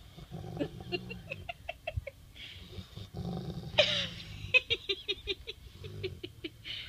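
Rottweiler making a low rumbling "purr" in bursts while holding a tennis ball in her mouth, which the owner says is talking, not aggressive growling. Runs of quick clicks come about a second in and again after four seconds, with a short sharp sound dropping in pitch just before four seconds.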